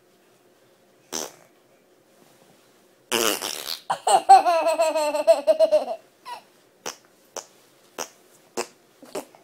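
A brief rough, rasping noise, then a young child's long, wavering laugh, followed by a run of short giggles about every half second.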